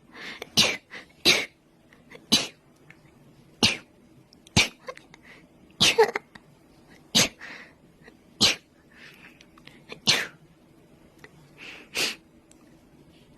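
A woman sneezing over and over in a long fit: about a dozen short, sharp sneezes, one every second or two.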